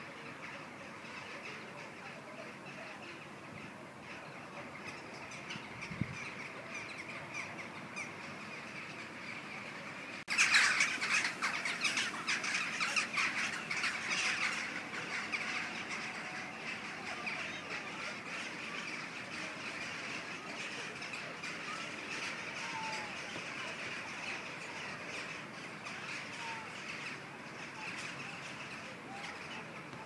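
A large flock of corvids calling in flight: many overlapping caws and squawks that go on without a break. About ten seconds in the calling turns abruptly louder for several seconds, then settles back to a steady chorus.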